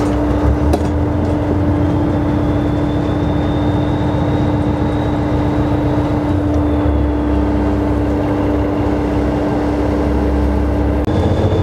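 Steady machinery noise aboard a 17.5 m steel commercial fishing boat: a low engine rumble under a constant droning hum.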